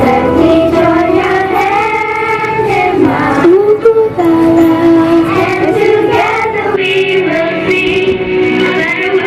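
Children's choir singing a held, slow melody together, with sustained notes that glide between pitches.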